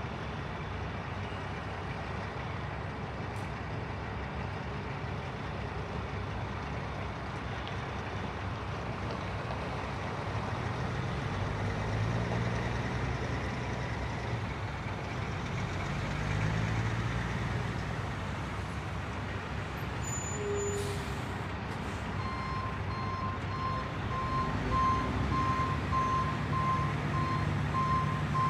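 Construction-site ambience: a heavy vehicle's engine running and revving up and down over a steady machinery din, a short burst of air hiss about three-quarters of the way through, then a reversing alarm beeping steadily near the end.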